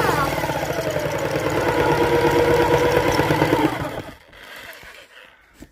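Bosch jigsaw cutting through a pine worktop panel, its whine dropping in pitch over the first second as the blade bites, then running steadily with a fast stroking rattle. It stops about four seconds in.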